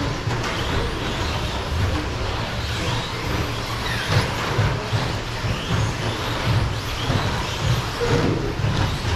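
Several electric short course RC trucks racing on an indoor carpet track, their motors whining up and down with throttle over a steady rumble of tyres and running gear.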